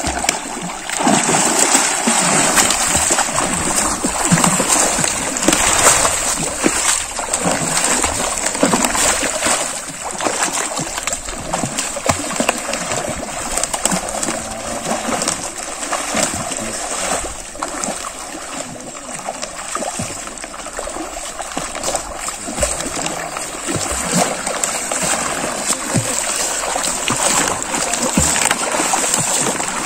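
Water splashing continuously as a person lying on a raft of plastic bottles paddles with his arms and kicks his legs.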